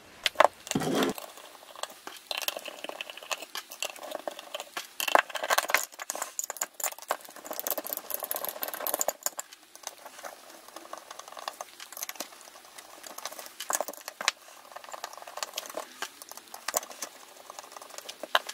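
Screwdriver and hands working on a small metal instrument housing: irregular clicks, scrapes and light rattles as screws are undone and the box and its plate are handled.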